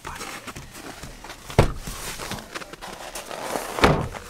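Rustling handling noise with two dull thumps, one about one and a half seconds in and a louder-sounding one near the end.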